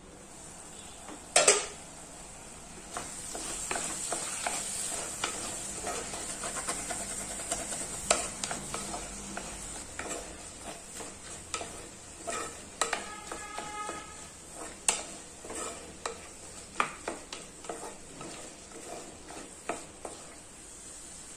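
An aluminium lid is lifted off a clay pot with one loud metallic clank about a second in. Chopped bottle gourd then sizzles steadily in the clay pot while a spatula stirs and scrapes it with irregular clicks.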